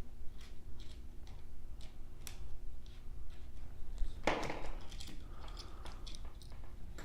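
Small clicks and taps of a hex key and metal printer parts being handled while bolts are loosened, with a louder rustling scrape about four seconds in.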